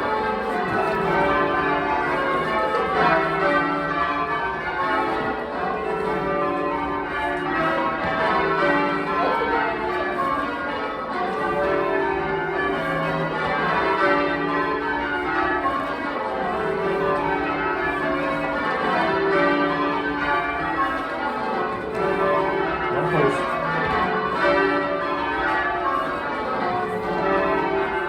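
A ring of twelve full-circle church bells, the back ten cast in 1937 and two added in 1949, ringing rounds. The bells strike one after another from the highest down to the heavy tenor, and the same falling run repeats over and over at an even pace.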